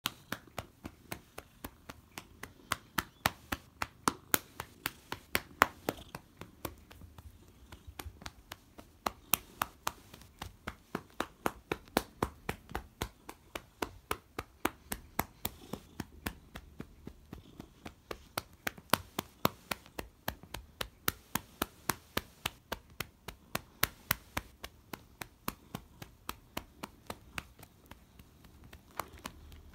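A hand patting a calico cat's rump over and over: quick light smacks at about three to four a second, some louder than others.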